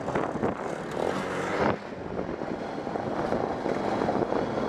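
ATV engine running as the quad is ridden across gravel, louder for the first second and a half, then dropping suddenly and running on steadily.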